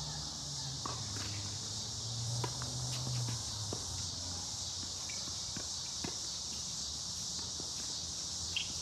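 Tennis rally on an outdoor hard court: scattered sharp ball strikes and footsteps, over a steady high-pitched chorus of insects. A low hum fades out about three seconds in.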